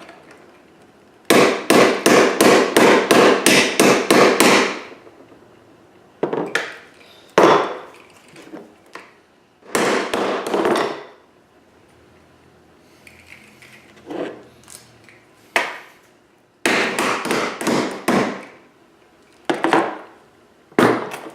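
Hammer blows flattening a bent part of an EST SIGA-278 fire alarm pull station: a fast run of about a dozen strikes, then single blows spread out, and a second quick run later on.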